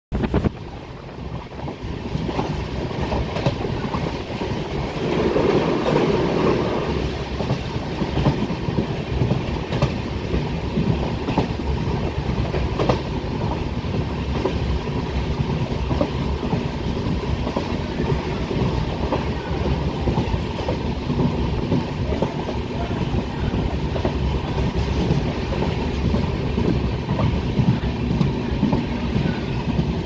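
Train running at speed, heard from on board: a steady rumble of wheels on rails with frequent clicks and clatter, a little louder around five to seven seconds in.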